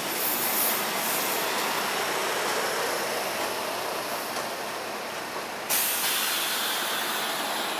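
SEPTA Silverliner V electric multiple-unit commuter cars rolling past close by as the train departs, a steady rush of wheels on rail and car noise. About six seconds in, the hiss gets suddenly louder.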